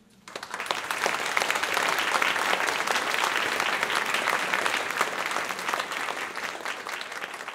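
Audience applause, breaking out suddenly just after the start as a dense crowd of clapping hands, holding steady, then easing off slightly near the end.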